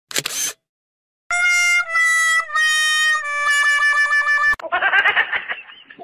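A sad-trombone comedy sound effect: four descending muted-brass notes, "wah wah wah waaah", with the last note held longer and wobbling. A short whoosh comes just before it, and a burst of quick clucking, like a chicken sound effect, follows near the end.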